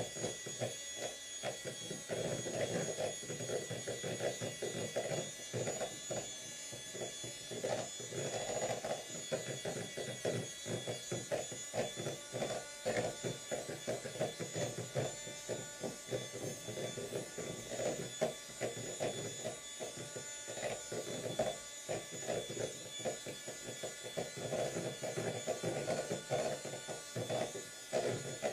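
Electric hand mixer running at a steady speed, its beaters whipping cream with cream cheese and powdered sugar in a plastic bowl. There is a steady motor whine over the churning of the beaters. The cream is nearly whipped.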